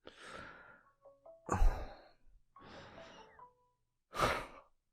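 A voice breathing out in several breathy sighs, about four in all, with a few brief electronic beeps about a second in.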